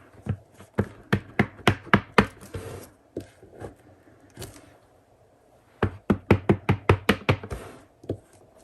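Quick runs of light taps on a tabletop, about five a second, coming in two bursts with a short pause between.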